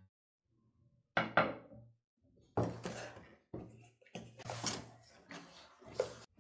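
A cardboard box being handled and opened out on a wooden table: two sharp knocks about a second in, then several scraping, rustling strokes of cardboard, with a click near the end.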